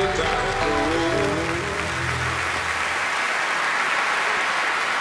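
A large audience applauding, with a short music sting whose melody and bass fade out about halfway through; the applause then carries on alone.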